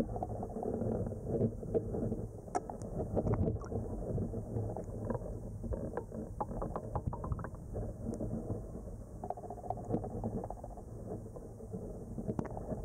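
Low, muffled rumble of flowing river water heard through an underwater camera's housing, with scattered small clicks and ticks.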